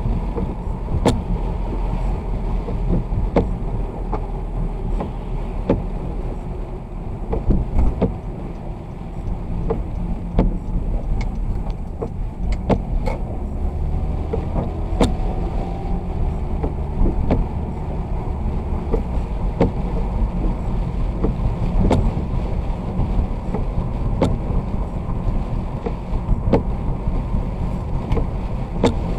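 Vehicle driving in the rain: a steady low road rumble with scattered sharp ticks throughout.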